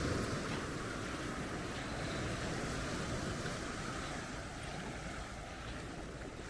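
Sea surf washing onto the beach: a steady, even rushing of waves.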